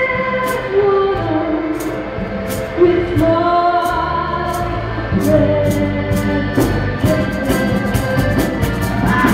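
Music: a singer holding long, wavering notes over a band, with drum or cymbal hits that come faster near the end.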